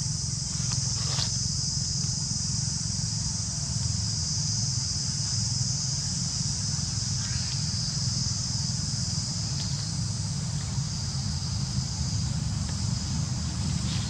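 Steady, high-pitched drone of an insect chorus, over a constant low rumble.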